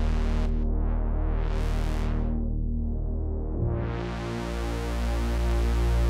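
Dave Smith Prophet-6 analog polyphonic synthesizer playing held chords with a deep bass. Its tone brightens and darkens several times as a panel knob is turned. The chord changes about three and a half seconds in.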